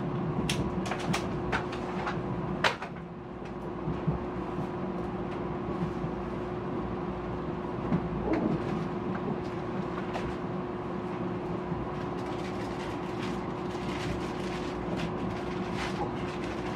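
Inside a Mugunghwa passenger train carriage while it runs: a steady rumble with a constant hum, broken by a quick run of sharp clicks and knocks in the first three seconds and fainter ticks later on.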